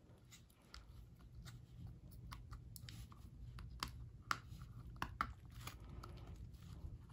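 Faint handling noise: irregular small clicks as fingers press the new battery's connector onto an opened iPhone 5's board, over a low steady hum. The clicks are loudest about four and five seconds in.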